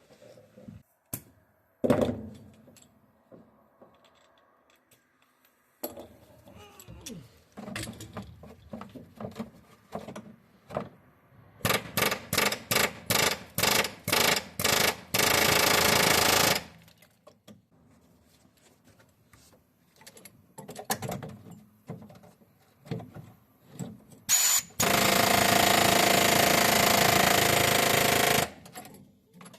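Pneumatic air tool cutting rusted steel out of a car chassis. It fires in a string of short bursts, then runs steadily twice for a few seconds at a time, with scattered knocks of metal on metal between.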